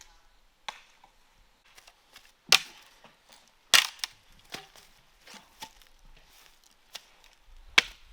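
A blade chopping into wood in irregular strokes, the hardest blows about two and a half seconds in, just under four seconds in, and near the end.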